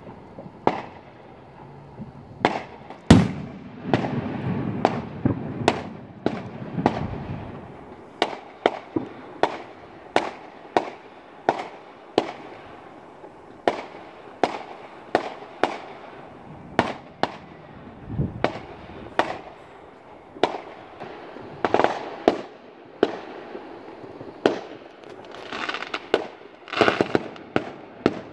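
Fireworks going off: an uneven run of sharp bangs, roughly one or two a second, with a low rumble after the loudest bang about three seconds in and a cluster of quick pops near the end.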